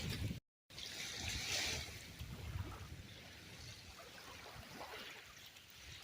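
Small Lake Superior waves washing and lapping on a rocky, sandy shore, with wind rumbling on the microphone. The sound cuts out completely for a moment about half a second in.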